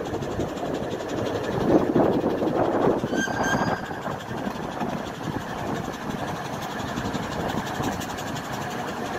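A 15-inch gauge miniature steam train running, heard from an open passenger carriage: a steady rumble of wheels and running gear on the track, with a brief high-pitched tone about three seconds in.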